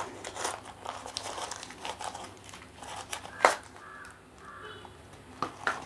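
Cardboard and paper packaging rustling and crinkling as a cardboard tube package is pulled open by hand, with scattered light clicks and one sharper knock about three and a half seconds in.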